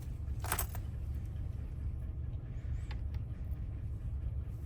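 Small metal parts of a van door lock cylinder clicking as it is handled: one short sharp click about half a second in and a faint tick near three seconds, over a steady low hum.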